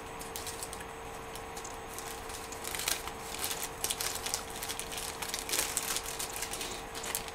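Faint crinkling and rustling of something being handled, in irregular clicks that pick up about three seconds in, over a steady hum.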